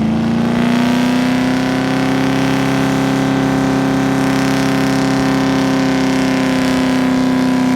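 Holden Commodore's LS1 V8 held at high, steady revs during a test skid (burnout). The revs climb a little in the first second and then stay flat and loud.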